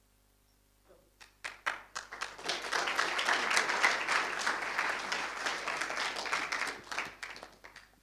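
Audience applause: a few scattered claps about a second in, building into a full round of clapping that thins out to a few last claps near the end.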